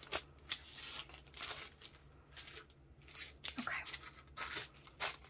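Clear plastic packaging crinkling and rustling as it is handled, in short irregular rustles.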